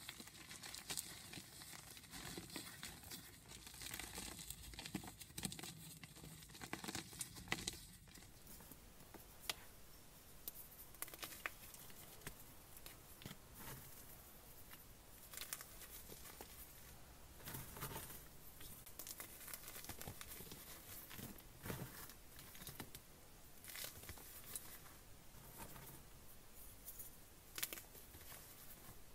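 Blocks of gym chalk being crumbled and shaved, crunching and crackling softly. The crunching is dense for the first several seconds, then thins to sparser scrapes and crisp crackles.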